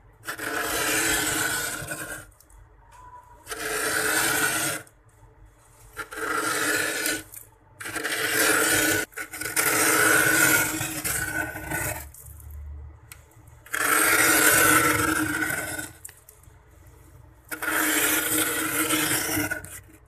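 The rim of a small cup scrapes thick frost off a freezer compartment's ceiling in about seven long, rasping strokes. Each stroke lasts one and a half to two and a half seconds, with short pauses between.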